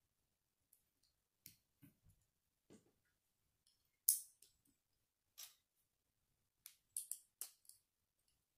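Small plastic Lego pieces clicking as they are pressed together and handled: scattered sharp clicks, the loudest about four seconds in, with a quick run of several clicks near the end.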